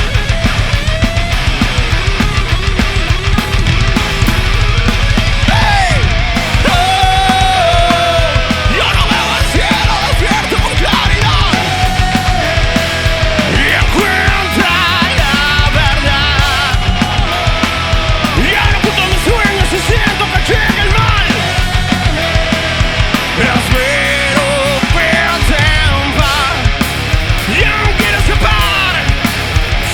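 Live rock band playing a loud instrumental passage: electric guitars, bass and drums, with a bending, wavering lead line over the top.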